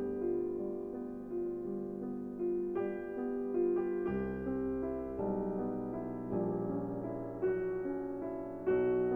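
Soft background piano music, slow chords and a gentle melody.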